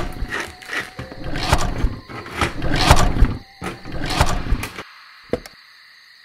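Vespa scooter being kick-started over and over, its engine turning over in uneven strokes without catching, for about five seconds before stopping.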